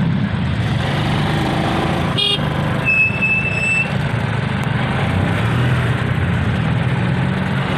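Motorcycle tricycle engine running steadily in traffic, heard from inside the sidecar. A short vehicle horn beep sounds about two seconds in, followed by a brief high-pitched tone about a second later.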